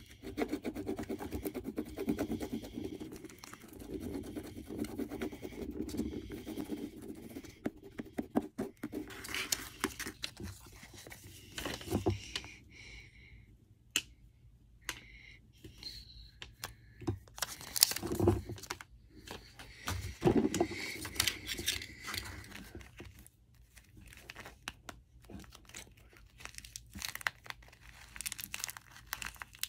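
Steady scratching as the coating is rubbed off a homemade paper scratch card, then crinkling and tearing of tape-covered paper, ending with a taped paper squishy being squeezed with a crunch.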